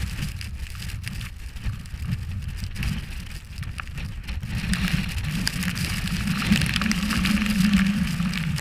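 Snowboard sliding over snow, its scraping hiss growing louder about halfway through, over the low rumble of wind on a GoPro's microphone.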